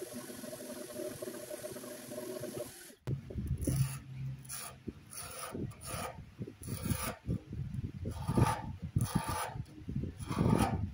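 A random orbital sander runs steadily for about three seconds. Then, after a sudden break, a hand-held carbide scraper is drawn over a wooden cabinet frame in repeated, irregular strokes, scraping off the old finish.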